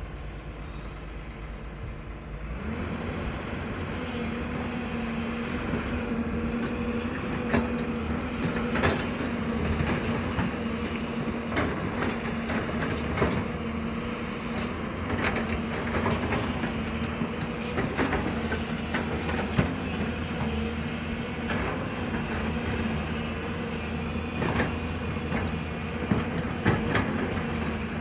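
Diesel excavator engine running under hydraulic load, its steady hum rising about two and a half seconds in, with scattered sharp clanks and knocks of the machine's metal parts and rock.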